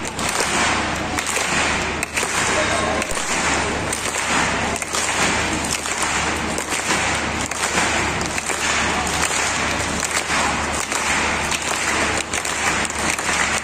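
Circus audience applauding, a dense patter of many hands clapping with crowd voices mixed in.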